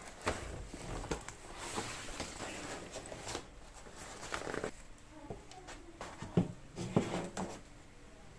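Plastic packaging bag crinkling and rustling while cardboard packaging is handled and slid against the fibreboard pegboard, with a few sharp knocks in the second half.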